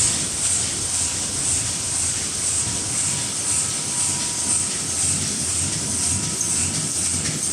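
JIGUO MY-1050FAST automatic die-cutting machine running at speed: a loud, steady mechanical clatter and hiss that pulses evenly with each machine cycle.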